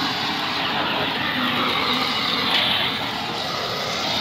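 Hose-fed gas blowtorch burning with a steady rushing hiss as it heats a metal bucket.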